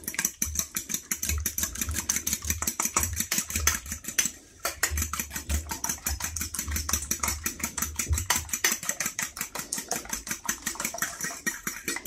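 Fork beating an egg in an enamel bowl: a fast, even clatter of metal tapping and scraping against the bowl, with a short pause about four seconds in.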